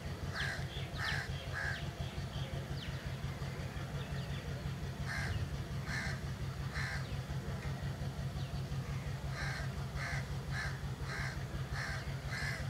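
Broad-gauge diesel locomotive engine running with a steady low throb as it slowly approaches. Crows caw over it in runs of three or more short calls about half a second apart, with a longer run near the end.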